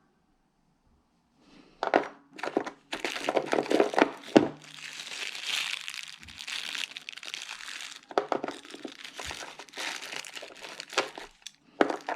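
Packaging crinkling and rustling as it is handled, beginning about two seconds in, with a few sharp clicks and knocks among the rustle.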